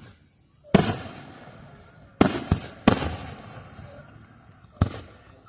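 Aerial fireworks shells bursting overhead: five sharp bangs in about four seconds, the first about a second in and three close together near the middle. Each trails off in an echoing rumble.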